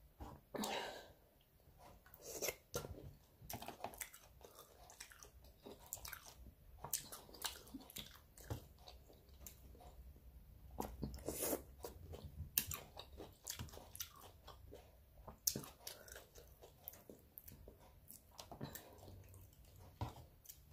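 Close-up chewing and biting of seafood-boil food: irregular short crunches and wet mouth clicks, with no steady rhythm.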